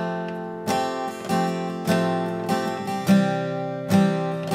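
Steel-string acoustic guitar strummed, a strum roughly every two-thirds of a second, moving from one chord to a second one about three seconds in.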